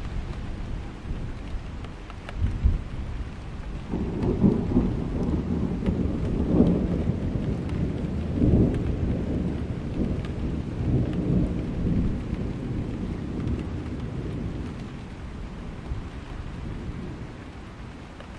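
Thunderstorm: steady rain with a long rolling rumble of thunder that swells about four seconds in, surges several times, and dies away over the next ten seconds.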